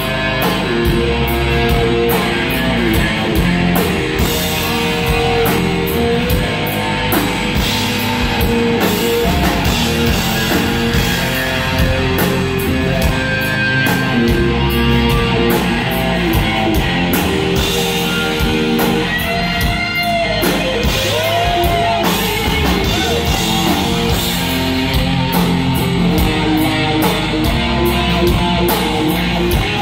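Live rock band playing an instrumental passage with electric guitars, bass and drum kit. A lead guitar slides and bends a few notes about twenty seconds in.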